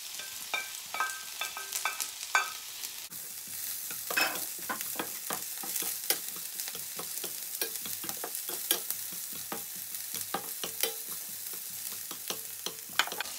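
Red onion and garlic sizzling in oil in a stainless steel frying pan, with a plastic slotted spatula scraping and clicking against the pan as they are stirred.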